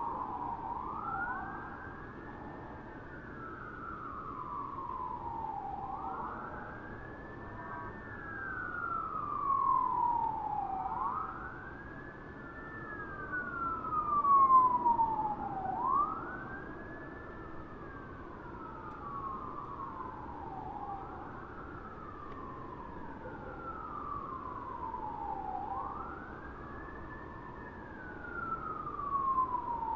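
Distant American fire truck siren on a slow wail: the pitch climbs quickly, then glides down over a few seconds, repeating about every five seconds. It grows louder briefly about ten and fourteen seconds in, and again near the end.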